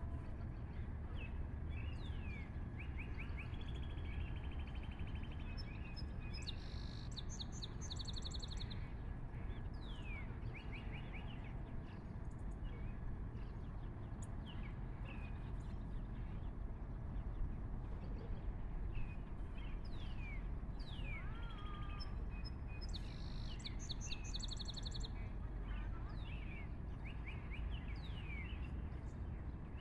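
Small birds chirping: a scatter of short downward-sweeping calls, with a quick rattling trill twice, over a steady low rumble.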